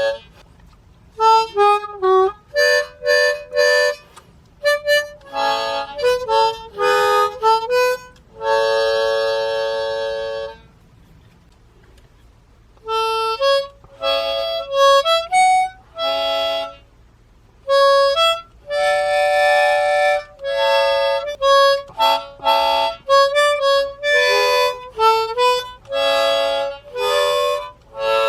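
Solo harmonica playing a simple folk melody, mostly single notes with a few held chords, in short phrases with a pause of about two seconds near the middle.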